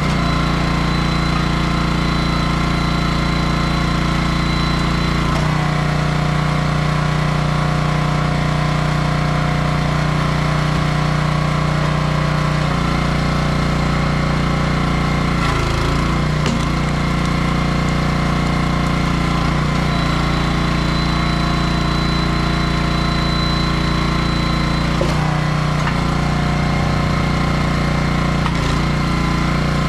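Small gas engine of a 27-ton log splitter running steadily, its note shifting a few times, about five seconds in, near the middle and near the end.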